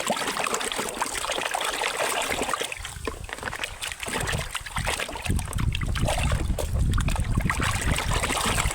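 Water running and splashing over a muddy plastic toy as it is washed, with small knocks and clicks of handling; the low rush of the water grows stronger about halfway through.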